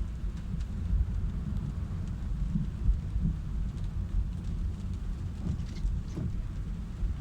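Car driving in heavy rain: a steady low rumble of the car on the road, with the hiss of rain.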